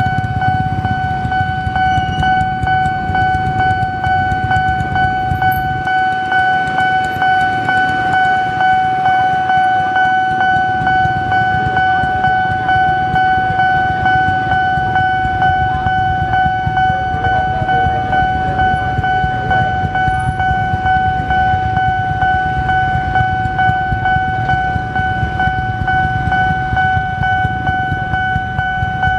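Railway level-crossing warning alarm sounding one steady high tone without a break, over the low rumble of idling motorcycle engines in the queue at the crossing.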